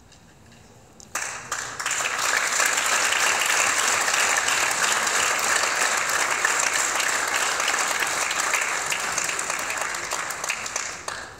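Audience applauding: a few claps about a second in swell quickly into steady, full applause, which dies away near the end.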